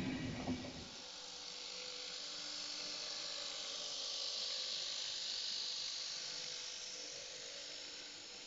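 Märklin Z-scale model train, headed by two BR 218 diesel locomotive models, running past: a quiet whirr of the tiny motors and wheels on the track, with a hiss that swells as it goes by and then eases off.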